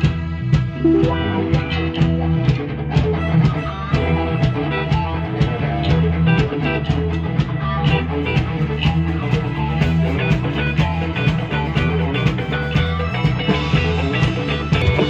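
A rock band playing live: guitar over a bass line and drums keeping a steady beat of about two hits a second.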